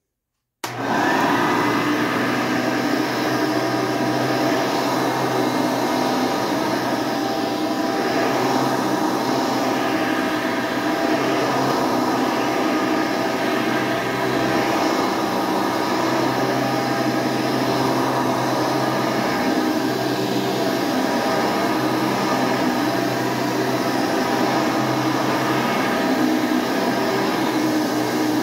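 A 1989 Hoover Elite 350 upright vacuum cleaner running steadily at full speed, with a steady motor whine. It starts abruptly about half a second in.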